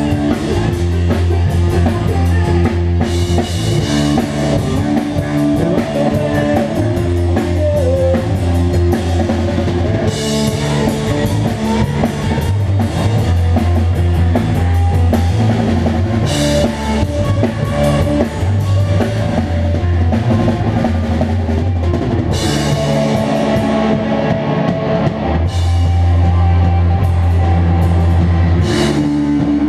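Rock band playing live without vocals: electric bass, electric guitar and drum kit, with held bass notes and a cymbal crash every few seconds.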